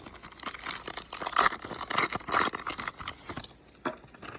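A Diamond Kings baseball card pack's wrapper being torn open and crinkled: a run of crackling rustles that dies away about three and a half seconds in, leaving a few faint clicks.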